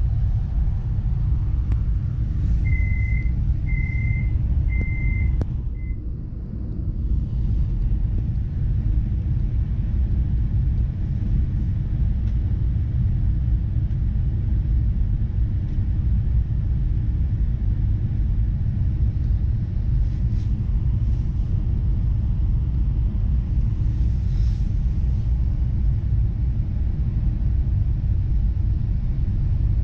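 Steady low rumble inside an ES2G Lastochka electric train carriage, with a faint steady hum over it. About three seconds in, a row of three even beeps and a short fourth sounds, like the door-closing warning signal.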